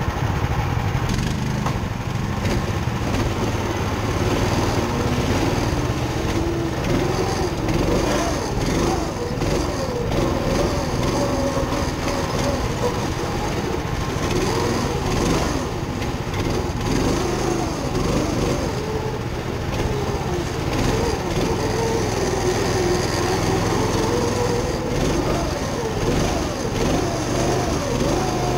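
A drift kart's small engine heard close up, idling at first and then running as the kart drives, its revs rising and falling over and over.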